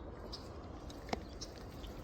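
Quiet outdoor ambience with faint, brief bird chirps and a single sharp click about a second in.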